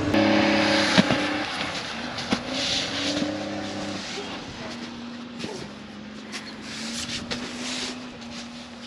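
Wheel loader engine running steadily, heard from inside the cab, with a few sharp knocks in the first couple of seconds. The hum gradually fades, with scattered sharp clicks in the second half.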